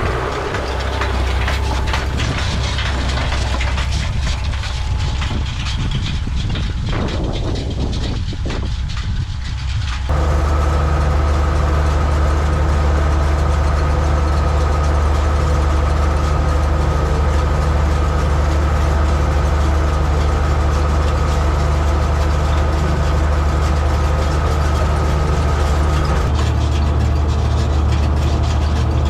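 Oliver 1755 tractor engine running, with rattling and clicking over it for about the first ten seconds. About ten seconds in it steps up to a louder, steady drone.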